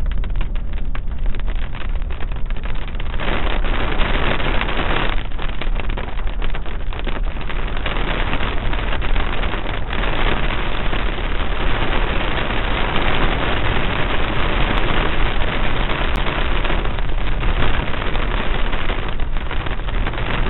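Steady noise of a car driving through heavy rain, heard from inside through a dashcam: tyres hissing on the wet road and rain on the windscreen and roof, a little louder from about three seconds in.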